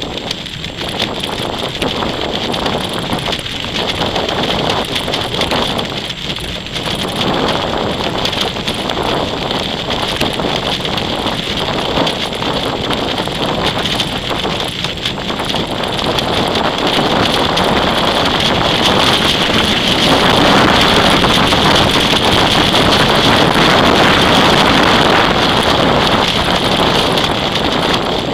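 Wind buffeting the microphone of a small camera carried aloft on a kite: a steady, dense rush that grows louder about halfway through.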